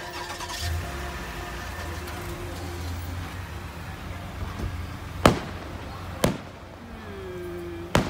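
Fireworks shells bursting: a small pop right at the start, then three sharp bangs about a second apart in the second half, over a steady low hum.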